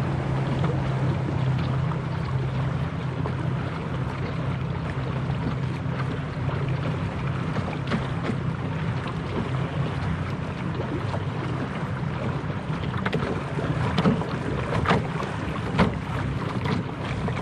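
Outboard motor of a passing pontoon boat running steadily, fading after the middle, over wind and water noise. Several sharp slaps and knocks come near the end.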